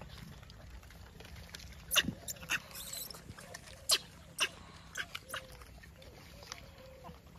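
Gray langurs biting into and chewing apples: a string of sharp crunches and snaps, loudest about two and four seconds in, then sparser.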